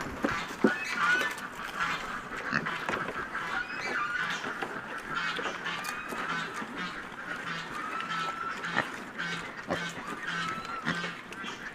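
Pigs feeding at a trough: a run of short high squeals and grunts with the odd click of munching, and in the second half a low grunt repeating about twice a second.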